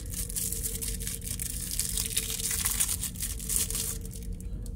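Plastic packaging crinkling and rustling as it is handled, dying away near the end, over a steady low hum.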